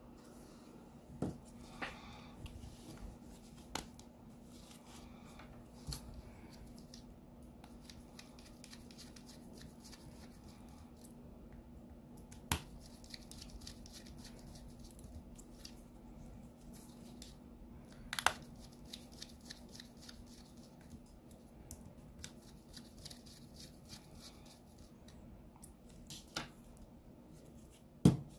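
Hands and a screwdriver working on the plastic housing of a chatterbox BiT-2 intercom during reassembly: quiet handling with scattered sharp plastic clicks, the loudest near the end as the case is pressed together. A faint steady hum runs underneath.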